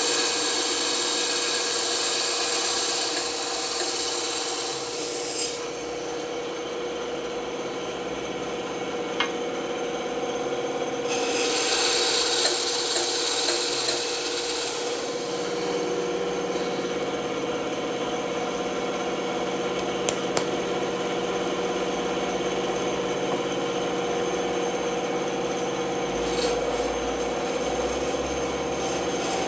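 Woodworking power tool running with a steady hum, with rasping stretches near the start and again about halfway through as wood is worked against it.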